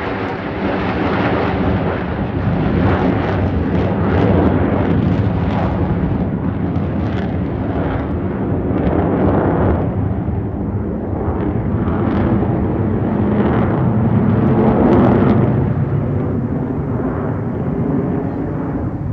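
Jet engines of a formation of four fighter jets flying overhead: a loud, rough roar that swells and ebbs. It is strongest about four seconds in and again about fifteen seconds in.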